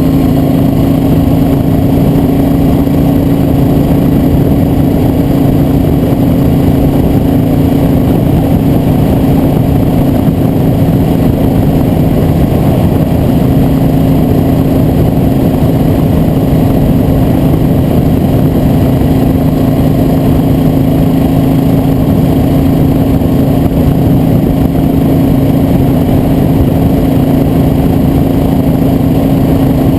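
A vehicle engine running at a steady speed, holding one constant pitch throughout over a loud, dense low rumble.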